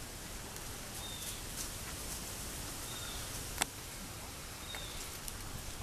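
Quiet outdoor ambience: a steady soft hiss with a few faint, short high bird chirps, and a single sharp click about three and a half seconds in.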